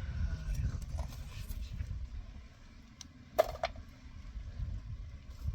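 A single sharp click about three and a half seconds in, with a few fainter ticks, over a steady low rumble.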